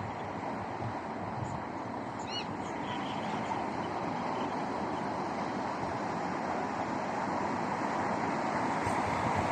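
Steady rush of wind and sea surf, with a short high bird call about two seconds in.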